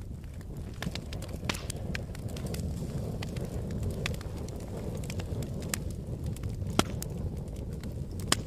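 Wood fire in a fireplace crackling: a steady low rumble of flames with scattered sharp pops of burning wood, the loudest about seven seconds in and again near the end.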